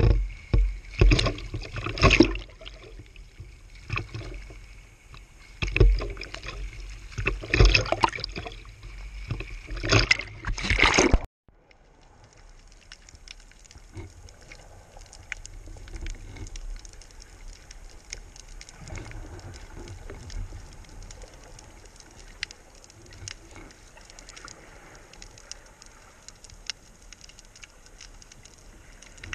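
Choppy sea water splashing and sloshing at the surface in loud bursts every second or two. About eleven seconds in this cuts off suddenly as the diver goes under, leaving a quieter underwater hiss scattered with faint crackling clicks.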